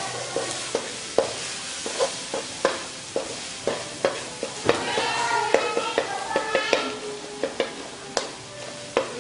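A metal ladle scraping and tapping against a steel wok, about twice a second, as chopped aromatics are stir-fried in oil, under a light, steady sizzle.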